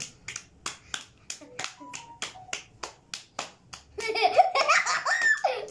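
Hand claps in a fast clapping game: two people slapping palms together in a quick, even rhythm of about five claps a second. The clapping stops about four seconds in, and voices take over.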